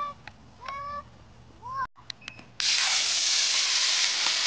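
Model rocket motor firing at lift-off: a sudden, loud, steady hiss that starts past the middle and runs for about two seconds. Before it come a few short honk-like calls, about one a second.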